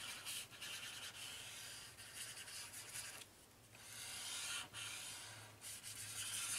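Tip of a ZIG 2-Way glue pen rubbing across white card stock as glue is spread over the panel: faint, scratchy strokes that come in stretches, with a short pause about three seconds in.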